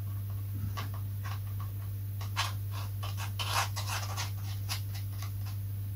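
Marker pen scratching in short strokes along the edge of a foam wing part as it is coloured in, over a steady low hum.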